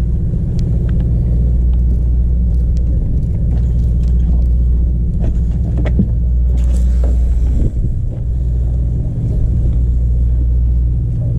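Boat engine running steadily with a low rumble, with a few light clicks over it.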